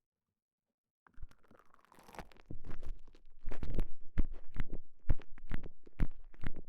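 TENGA Egg handled right against the microphone: irregular soft crackles and squishy rubbing pulses with a deep rumble. They begin about a second in and grow louder after a couple of seconds.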